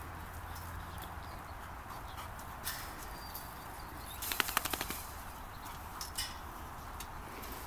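A puppy scuffling with a large stuffed teddy bear on grass and dirt: a steady background hiss with a few sharp clicks, and a quick run of rapid clicks about four seconds in.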